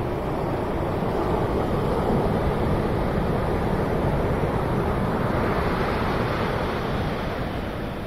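Strong sea surf: large waves breaking and foaming onto the beach as a steady, loud wash of noise.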